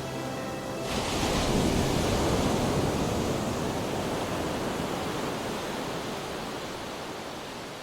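Music stops about a second in and gives way to ocean surf: a steady rush of breaking waves that slowly fades out.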